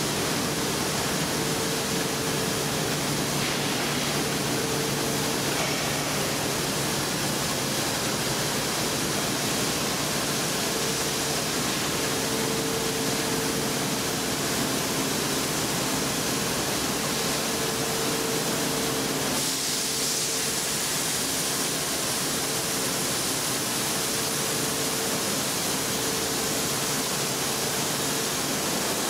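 Steady noise of running machinery on a wool-scouring line's feed and accumulation section, a dense even rushing sound with a faint hum that fades in and out.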